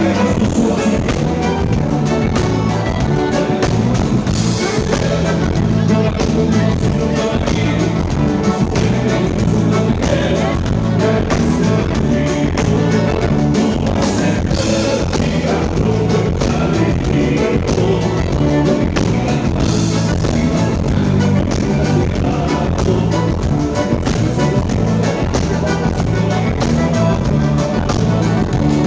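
Live band playing a song with singing, over a steady drum beat and a moving bass line.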